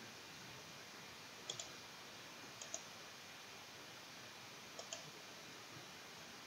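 Computer mouse button clicked three times, each a close pair of sharp clicks, over a faint steady hiss.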